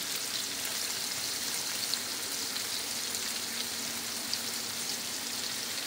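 Carrot sticks sizzling in hot oil in a non-stick frying pan, a steady crackle with no let-up.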